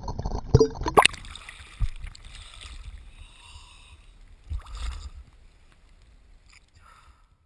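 Water splashing and gurgling, with a sharp splash about a second in and another burst of splashing around four and a half seconds in, fading out near the end.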